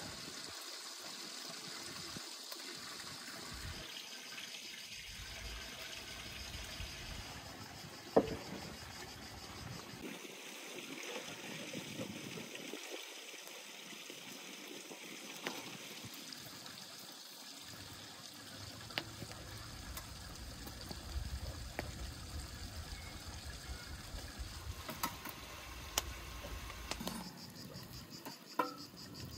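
Liquid pouring and trickling, with a few sharp clinks of utensils and metal, over steady chirping of crickets.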